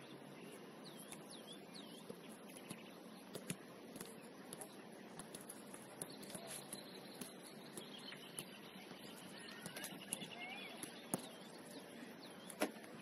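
Faint open-air ambience: a steady low noise with birds chirping now and then and a few sharp knocks, the loudest near the end.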